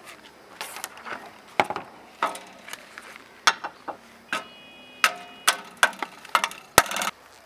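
Hammer knocking on an old steel crosscut saw clamped to a bench, around a dozen irregular blows, some with a brief metallic ring. The loudest blow comes near the end. The blows are struck where the wooden handle joins the blade, to separate the handle from the blade.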